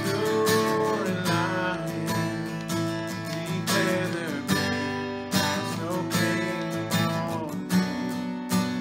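Worship music led by a strummed acoustic guitar, played as steady chords.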